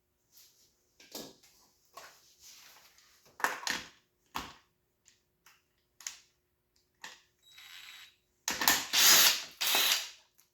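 Hand tools and metal parts clicking and clanking in irregular knocks while a dirt bike is taken apart, with a louder burst of clatter near the end.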